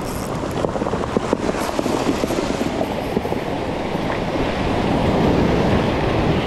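Surf breaking and washing over a beach of rounded cobbles, with the stones clicking and rattling against each other in the moving water.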